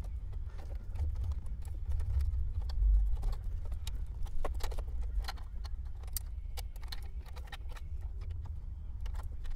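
Plastic wiring-harness connectors being unclipped and pulled from the back of a factory car radio: scattered small clicks and rattles of plastic plugs and wires, over a low steady rumble.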